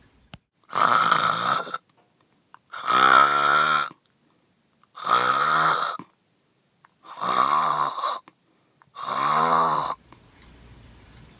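Loud snoring: five long snores, one about every two seconds, each lasting about a second with silence between.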